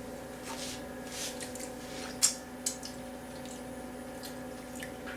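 A few soft clicks and taps of eating from a microwave dinner tray, one sharper click about two seconds in, over a steady low hum.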